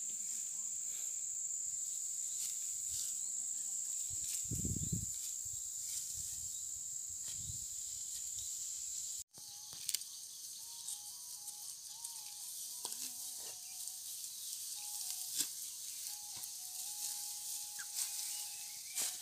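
Steady high-pitched insect chorus in the field, with scattered crisp clicks and rustles of dry rice stalks being handled and cut. After a sudden cut about nine seconds in, the insect sound is weaker and a faint simple melody plays over it.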